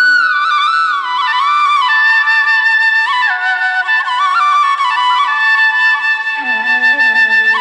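Background music: a flute plays a melody with sliding, ornamented notes over a steady held drone.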